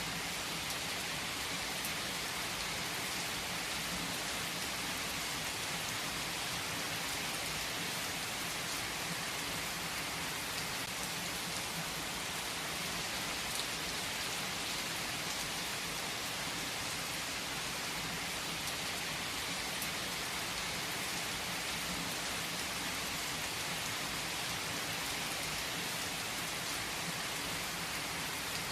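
Steady rain falling and pattering on surfaces: a continuous, even hiss with no distinct rolls of thunder.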